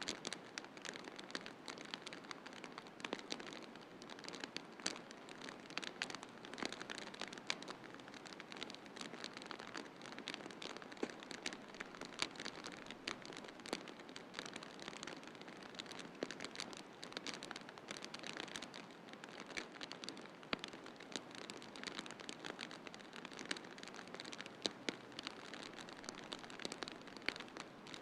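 Wood fire in a fireplace crackling, with many small sharp pops scattered irregularly over a steady soft hiss.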